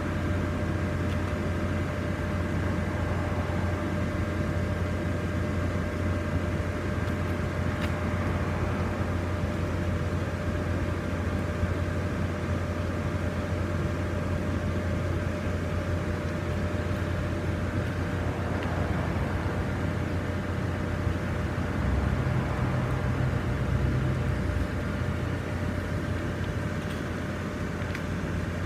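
Steady hum of the electric blower fans that keep the lawn inflatables inflated, with a faint constant whine over it; a slightly deeper hum joins for a couple of seconds about three-quarters of the way through.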